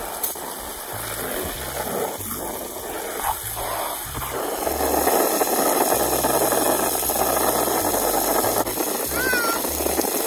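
Water from a garden hose spray nozzle running into a shallow inflatable paddling pool, a steady splashing rush that gets louder about four seconds in.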